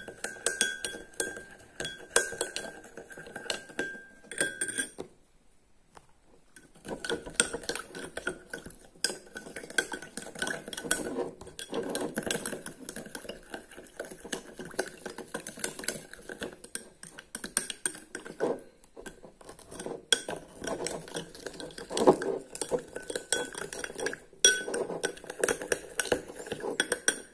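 A spoon stirring salt into water in a glass bowl, with quick irregular clinks of the spoon against the glass as the salt is dissolved into brine. There is a short pause about five seconds in.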